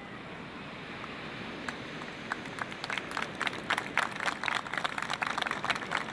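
Audience clapping. It starts with a few scattered claps about two seconds in and builds into dense applause over a steady background murmur.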